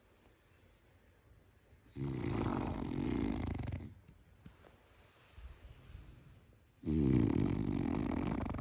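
French bulldog snoring: two long snores, each about two seconds, one about two seconds in and another near the end, with a faint breath between them.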